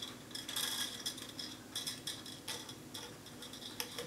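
Thin frame wire being pulled and fed through the holes of a wooden beehive frame, scraping and ticking lightly against the wood in short, irregular scratchy spurts with a few small clicks.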